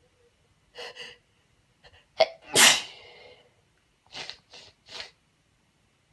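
A woman's uncovered sneeze, a single loud burst about two and a half seconds in. A breath in and a short catch come before it, and three short quick breaths follow.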